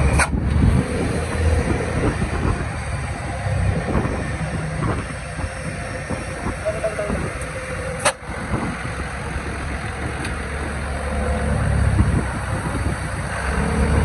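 Steady road-vehicle rumble and road noise, with no horn sounding. There is a short click and drop in level about eight seconds in.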